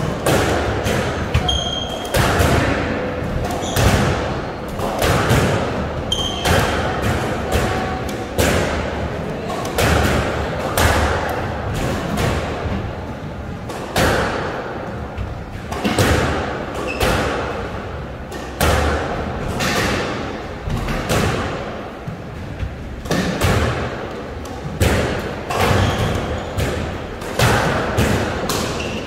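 A squash rally: the hard rubber ball smacks against rackets and the court walls in quick, irregular knocks, about one or two a second.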